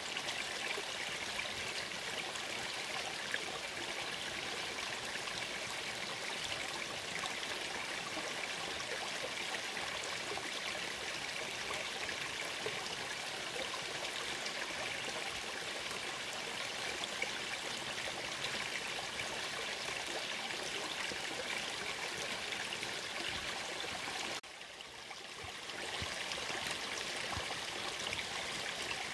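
Small mountain stream trickling and splashing over rocks in a shallow stony bed, a steady rushing flow. A few seconds before the end it drops away suddenly and swells back within about two seconds.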